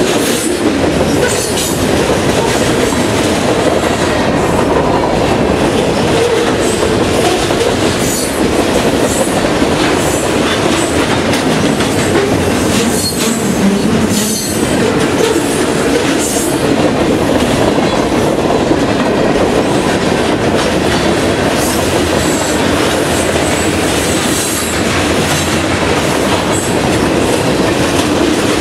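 Freight train cars rolling past: a steady, loud rumble of steel wheels on rail, with the rhythmic clickety-clack of wheels crossing rail joints. The cars are a mixed consist of boxcars, a tank car, covered hoppers and lumber flatcars.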